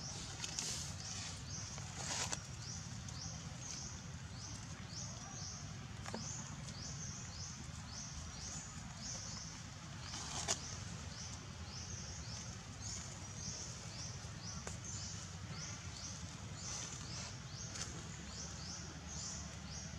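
A high, short chirp repeating about twice a second from a background creature, over a low steady rumble, with a sharp knock about two seconds in and a louder one about ten seconds in.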